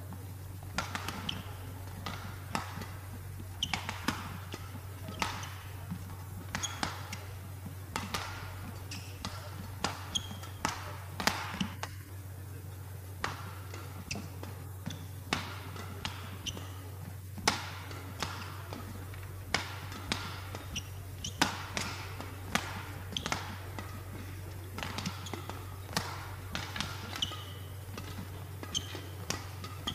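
Badminton rally: sharp clicks of rackets striking the shuttlecock at irregular intervals, with short high squeaks of players' shoes on the court mat, over a steady low hum.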